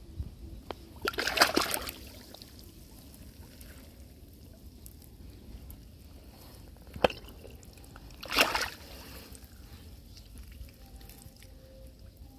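A hand working in a muddy, water-filled crab burrow: two short wet sloshes of mud and water, about a second in and again past eight seconds, with a sharp click just before the second.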